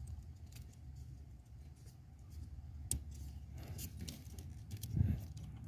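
Faint scattered clicks and rustling from plastic wiring connectors and a harness being handled under a car seat. There is one sharper click about three seconds in and a dull thump near the end.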